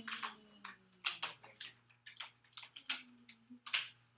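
Small letter cards and tiles being picked up and set down on a classroom tabletop: many light, irregular clicks and taps.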